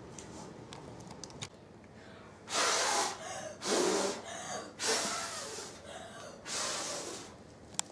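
A person taking four loud gasping breaths, about a second apart, after a quieter first couple of seconds.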